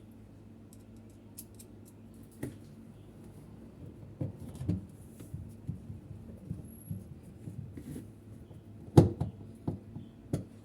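Scattered light clicks and knocks of washing machine parts being handled, the loudest about nine seconds in, over a low steady hum.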